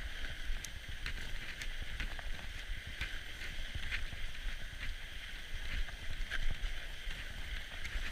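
Norco Bigfoot fat bike rolling over a packed-snow trail: a steady hiss from the wide tyres with many small, scattered crunching ticks, over a low wind rumble on the microphone.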